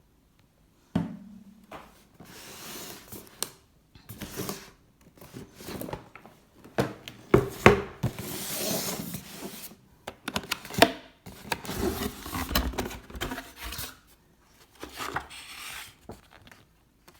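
A gift package being handled and opened by hand: irregular rubbing, scraping and rustling with many sharp clicks and knocks.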